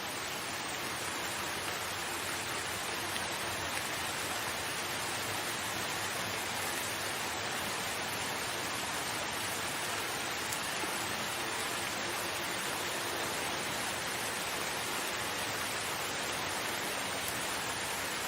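Steady rain, an even dense hiss of falling drops that holds the same level throughout.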